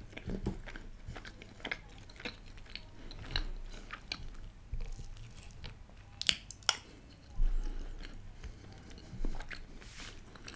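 Close-miked mouth sounds of a person chewing a spoonful of moong dal halwa: soft, wet, irregular smacks and clicks, with a couple of sharper clicks about six seconds in.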